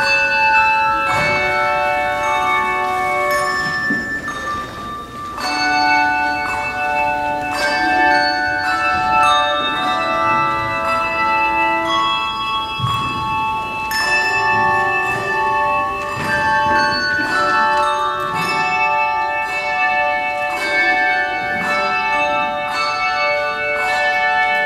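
Instrumental music of tuned bells: struck notes that ring on and overlap one another in a slow melody, with a short lull about four seconds in.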